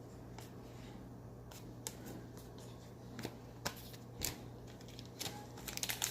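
Football trading cards being handled and flipped through: scattered soft clicks and slides of card stock against card stock, getting busier near the end.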